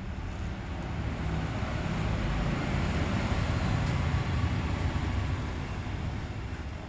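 Low vehicle rumble with traffic noise, swelling to its loudest around the middle and then easing off, like a vehicle going past.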